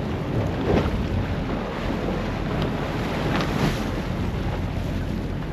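Wind buffeting the microphone on the deck of a boat at sea, a steady low rumble with the wash of the sea underneath.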